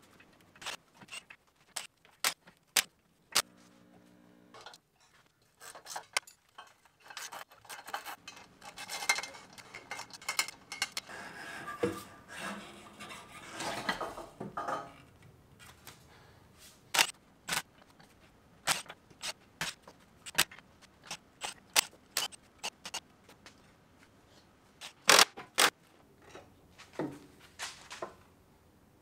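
Metal clinks, knocks and scraping of tools and parts as the rear suspension and exhaust are unbolted under a lifted car. A cordless power tool whirs briefly about four seconds in, and a longer spell of scraping and rubbing comes in the middle.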